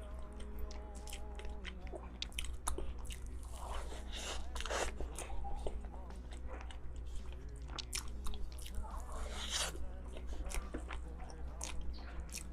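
Close-miked eating of cake: bites and chewing with many small wet mouth clicks and a couple of longer crunchy bites, over a steady low hum.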